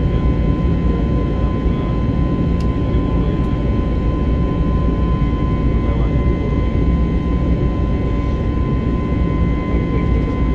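Jet airliner cabin noise in cruise flight: the steady rush of engines and airflow, with a steady whine running through it.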